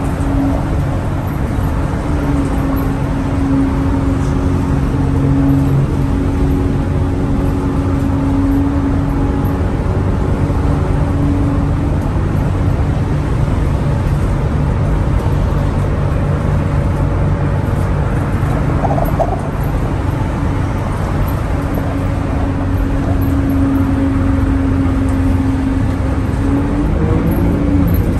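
Old school bus's engine running at a steady freeway cruise through a straight-pipe exhaust, heard from inside the cab with road rumble. It is a loud, steady drone whose pitch rises slightly near the end.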